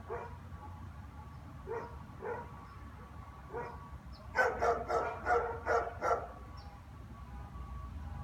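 German shepherds barking: a few scattered single barks, then a quick run of about five louder barks a little past the middle. A low rumble builds near the end.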